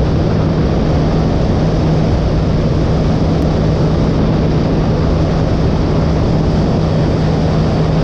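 Bass boat's outboard motor running steadily at speed: a steady low drone under heavy rushing noise.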